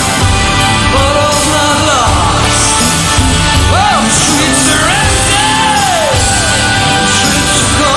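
Instrumental break of a Celtic rock song: a gliding, bending lead melody over a full band with a steady beat.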